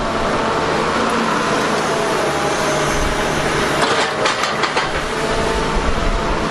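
Grapple excavator's engine running steadily, with a few sharp knocks about four seconds in.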